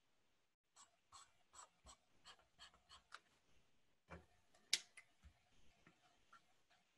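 Faint pen strokes on paper while someone draws: a quick run of about eight short strokes, two to three a second, then a few scattered ones, the sharpest a single tap about two-thirds of the way through.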